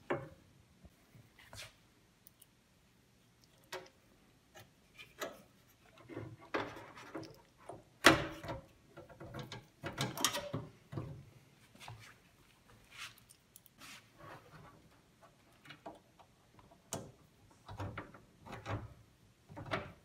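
Scattered clicks, taps and knocks of a computer water-cooling radiator being fitted to a metal PC case, with its mounting screws handled and turned in with a hand screwdriver; the loudest knock comes about eight seconds in.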